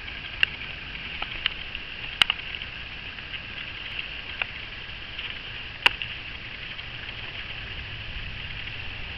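Steady high-pitched insect chorus, with a few sharp clicks scattered through it, the loudest about two and six seconds in.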